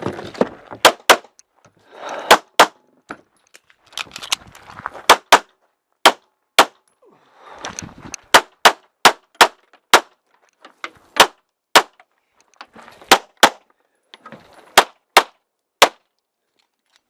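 Handgun fired in rapid pairs and short strings, about two dozen shots, with lower rustling noise between the strings.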